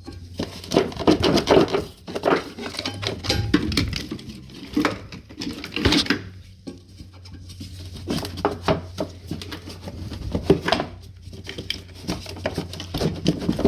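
Irregular clicks, knocks and rattles of plastic and metal parts being handled and pulled loose in a car's engine bay, over a steady low hum.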